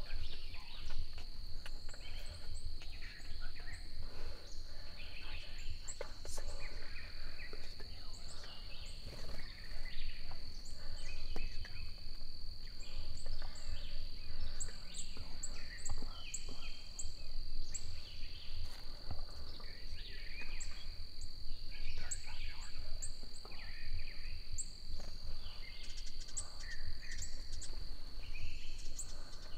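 Spring woodland ambience: a steady high insect drone with songbirds chirping and calling throughout, over a low rumble.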